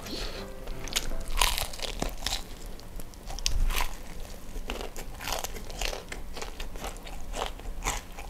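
Crispy fried chicken (ayam geprek) being bitten into and chewed, a rapid irregular series of crisp crunches of the fried coating.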